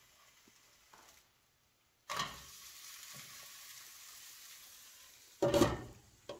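Freshly flipped crêpe sizzling in a non-stick frying pan on a gas burner, the sizzle starting abruptly about two seconds in and holding steady. Near the end, a short loud clatter as a glass lid is set on the pan.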